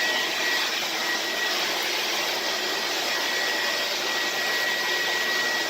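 Vintage 1970s Air-Way Sanitizor Mark V canister vacuum cleaner running steadily, with a constant high motor whine over the rush of suction air, as its floor tool works along a hardwood floor.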